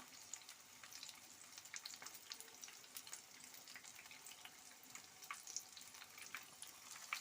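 Batter-coated chicken wings deep-frying in hot oil: a faint, steady sizzle with scattered crackles and pops.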